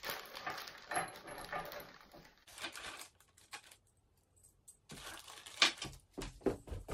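Hands working on a drum carder's wooden frame and motor-mount hardware: rustling handling noise, then a few sharp metallic clinks and knocks, the loudest about five and a half seconds in.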